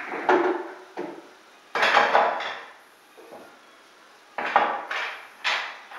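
Pool balls being set into a triangle rack, clacking against one another in a string of sharp knocks that come in bunches, re-racking the balls for straight pool.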